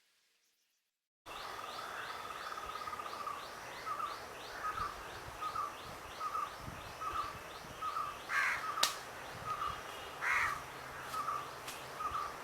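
Outdoor birdsong after about a second of dead silence: one bird repeats a short note about one and a half times a second over a fast high chirping. Twice in the second half a louder, harsher call, like a crow's caw, cuts in.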